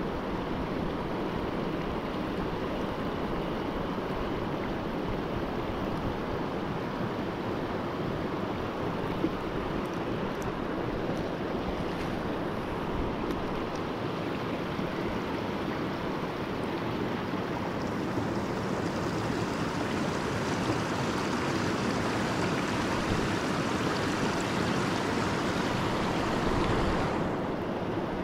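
River rapids rushing, a steady, even roar of water that grows a little brighter and louder about two-thirds of the way through.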